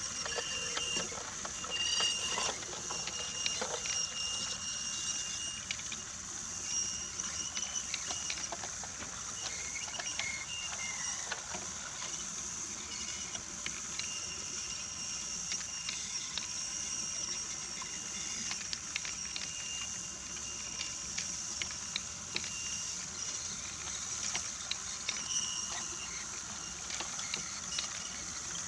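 Brio toy train running on wooden track: the locomotive's small motor whirs steadily and high, with scattered clicks and clatter as the wheels pass over the track joints.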